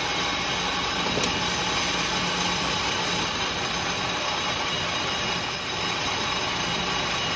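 Metal lathe running steadily while its tool cuts a dish into a piston crown. A constant machine noise with a steady low hum underneath.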